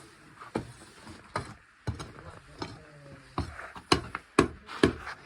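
A run of sharp knocks about two a second, loudest toward the end.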